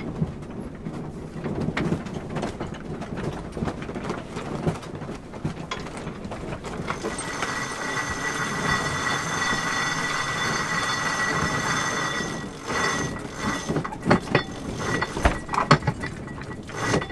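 Sailboat sheet winch ratcheting as the sheet is hauled in during a tack: irregular clicking of the winch pawls, a steady whirr with a ringing tone from about seven to twelve seconds in while the line comes in fast, then more clicks and knocks.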